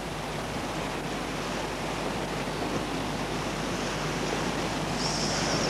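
Outdoor ambience of wind and distant surf breaking on the shore: a steady rushing noise that swells slightly toward the end.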